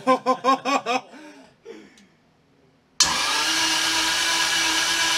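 A man laughing briefly, then about three seconds in a Toyota 2JZ inline-six is cranked over by its starter, a loud steady whirring that starts suddenly. It turns over without firing: this is the first crank on a new standalone ECU that has not yet been set to fire the engine.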